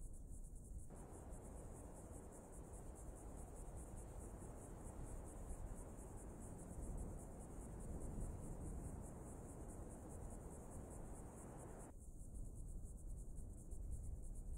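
Crickets chirring steadily in a fast, even pulse over a low rumble; a soft rushing noise comes in about a second in and cuts off suddenly near the end.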